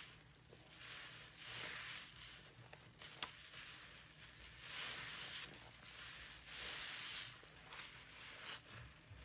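A soaked yellow sponge squeezed repeatedly in thick soapy suds, each squeeze a wet hissing squish of foam and liquid rising and falling over a second or so. There is one sharp click a little after three seconds.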